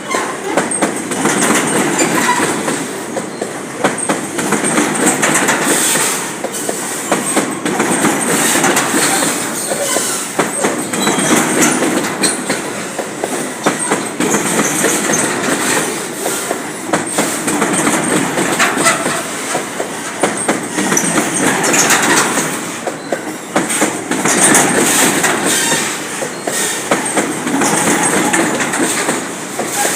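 A train's cars rolling past at steady speed, the wheels clattering over the rail joints in a continuous clickety-clack.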